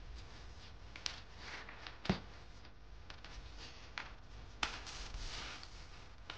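Faint rustling and scuffing of a small kitten scrambling on textured foam mats under a person's hand, with a few sharp taps and clicks.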